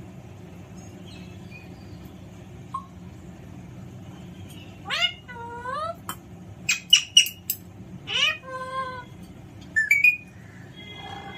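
Alexandrine parrot calling in short bursts. There is a drawn call with a rising start about five seconds in, three quick sharp squawks around seven seconds, another drawn call just after eight seconds, and two short calls near ten seconds.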